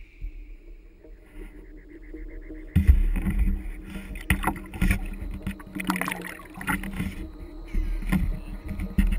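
Water splashing and sloshing around a sea kayak and its paddle, close to a camera mounted on the paddle shaft, with repeated knocks and rattles. It is quiet at first and starts suddenly about three seconds in.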